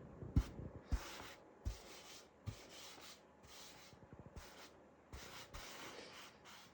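Faint scrubbing strokes: a surface being wiped or scrubbed by hand, in short rasping strokes one or two a second, with a few soft knocks in the first couple of seconds.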